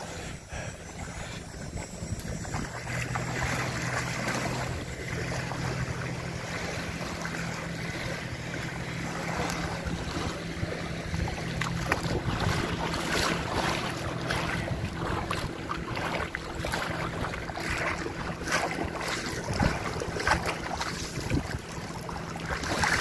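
People wading through shallow lake water, with splashing steps that get busier about halfway through, over wind buffeting the microphone. A low steady drone runs under the first half.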